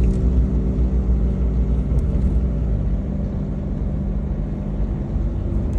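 Car driving at a steady speed: a constant low engine drone with road noise.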